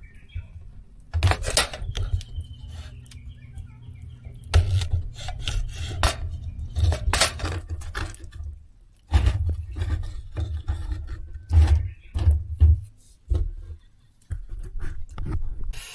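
Irregular knocks, clatters and scrapes of objects being handled, over a low rumble.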